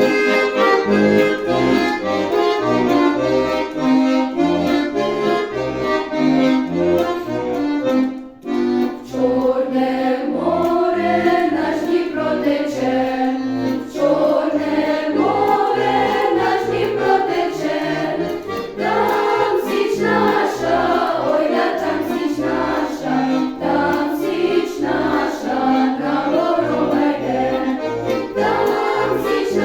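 Accordion playing a Ukrainian folk song with a steady alternating oom-pah bass, with a choir singing the song over it. The music drops out briefly about eight seconds in, then carries on.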